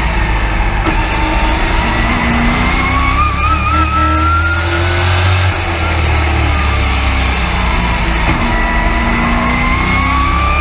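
Race truck's engine heard from inside the cab, rising in pitch as it accelerates for about three seconds, then easing off, and rising again over the last few seconds.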